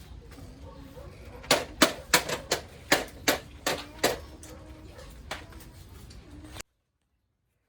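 A rapid series of about nine sharp hammer blows, roughly three a second, for under three seconds, then the sound drops out abruptly.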